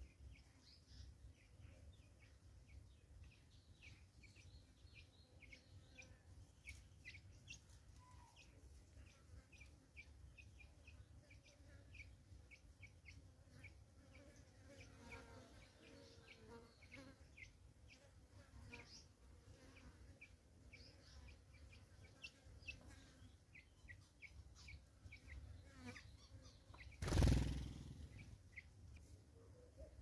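Faint, scattered high bird chirps throughout, then a brief loud flutter of wings about 27 seconds in as a black-collared barbet takes off.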